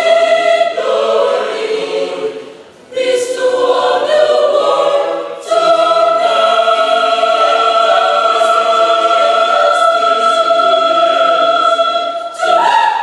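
Mixed choir singing in several voice parts: short phrases broken by two brief pauses, then a long held chord from about halfway through, ending on a short final chord near the end.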